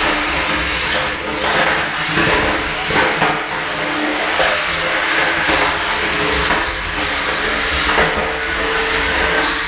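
Small electric combat robots' drive motors whining as they drive around the arena, with a few knocks.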